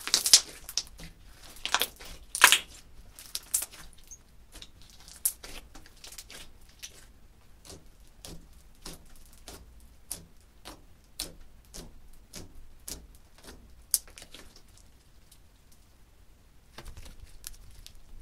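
Clear slime mixed with pink cosmetics and glitter being squeezed and poked by hand, giving wet pops and clicks. A few loud squelching pops come in the first few seconds, then a steady run of small pops, about two a second, as fingers press into it, and a short crackling near the end as it is stretched.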